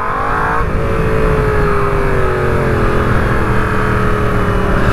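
Motorcycle engine under way: it revs up in pitch for the first moment, drops about a second in, then runs at a steady pitch that eases slightly as it goes.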